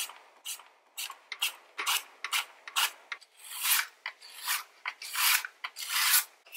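Peeled fresh ginger root slid back and forth across the blade of a wooden mandoline slicer, cutting thin slices with a rasping stroke on each pass. The strokes come quickly, about two a second, then slow to longer strokes from about three seconds in.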